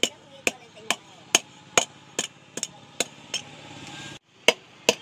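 Hand hammer striking a steel plough disc on an anvil, sharp blows about two a second. A steady hiss rises briefly and cuts off suddenly near the end, then two more blows follow.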